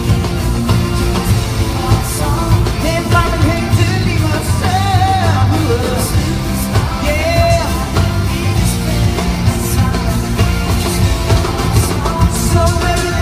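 A live band and singer performing a pop-rock song over a concert PA, with a steady drum beat under loud sung melody.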